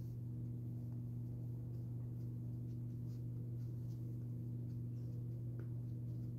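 A steady low hum, with a few faint soft taps from a makeup sponge being dabbed against the cheek.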